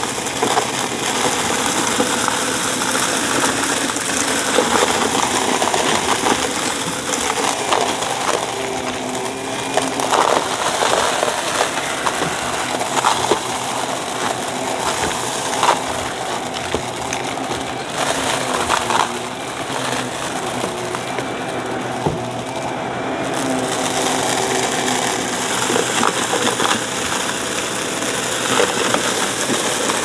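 Shark Navigator upright vacuum running on carpet, its brushroll picking up a thick layer of beads, buttons, sequins and grit. The debris crunches and clicks as it rattles up into the dust cup over a steady motor hum.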